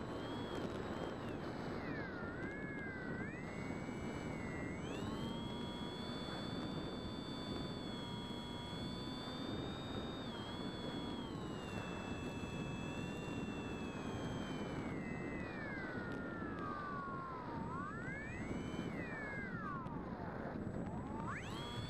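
The electric motor and pusher propeller of a Bixler RC foam plane whining as heard from the plane's own onboard camera, over a steady rush of air. The pitch rises and falls with the throttle, sliding down and back up several times over the last few seconds.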